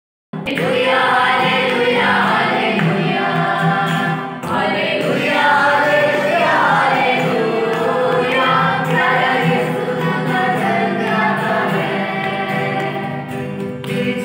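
A group of voices singing a Christian devotional song (masih geet) together in chorus. The sound drops out briefly right at the start.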